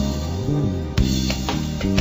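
Background music with drums and plucked strings; a sharp drum hit lands about a second in and another near the end.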